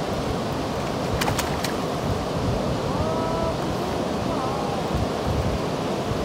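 Steady rush of river water pouring over a weir and through the riffles, mixed with wind on the microphone. A few faint clicks come about a second in, and a brief faint pitched call sounds around the middle.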